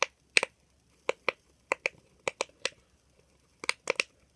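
Silicone pop-it fidget toy shaped like a gumball machine being pressed, its bubbles giving about a dozen sharp pops, often two in quick succession.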